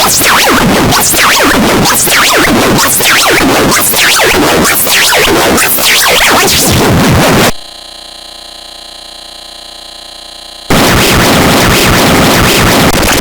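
Very loud, harsh, distorted noise from an edited cartoon soundtrack, full of quick sweeping streaks. About seven and a half seconds in it cuts to a quieter steady buzzing tone for about three seconds, then the harsh noise returns.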